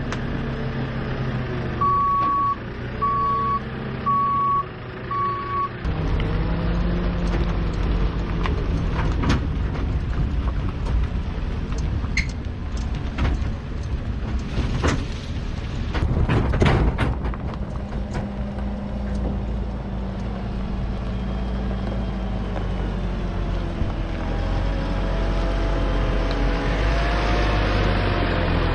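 A JCB's diesel engine running, with a reversing alarm beeping four times, about once a second, in the first few seconds. The engine then runs harder as the machine moves, with scattered knocks and rattles, and it rises again near the end.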